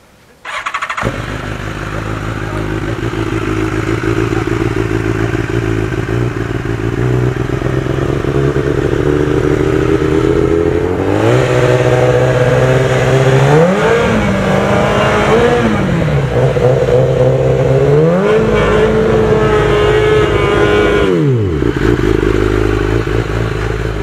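BMW S 1000 RR superbike's inline-four starts up and idles, then is revved up and held at a steady higher engine speed twice for the scrutineering exhaust noise test, dropping back to idle near the end.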